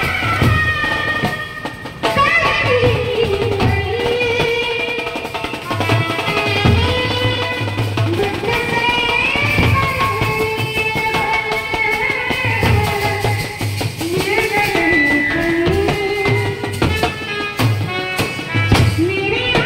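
Indian procession band playing a slow film-song melody live, the lead line sliding between notes over a steady drum beat.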